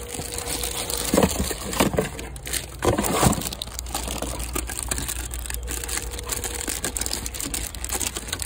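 Plastic packaging crinkling and rustling as an amplifier is handled in its cardboard box, with irregular crackles and a few louder handling bumps in the first few seconds. A steady low hum runs underneath.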